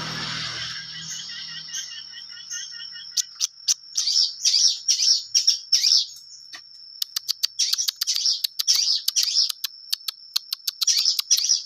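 Long-tailed shrike singing: a fast run of short, harsh chattering and chipping notes over a steady high whistled tone, the notes thickening about three seconds in. A rushing noise fades out in the first second.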